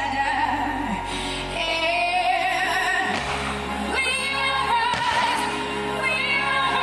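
Music with a singer: a held, wavering vocal line over an orchestral-style accompaniment, the soundtrack of a fountain show.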